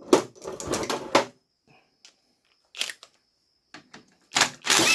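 Metal shift-linkage parts of a manual transmission clicking and clattering as they are worked off by hand: a run of sharp knocks in the first second and a half, single clicks about three and four seconds in, and a louder clatter near the end.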